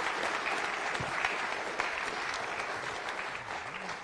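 Audience applause, a dense patter of many hands clapping, thinning out near the end.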